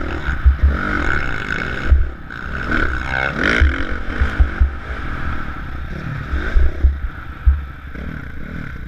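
Motocross dirt bike engine revving up and down as the bike is ridden along the track, heard over heavy wind buffeting on a helmet-mounted camera.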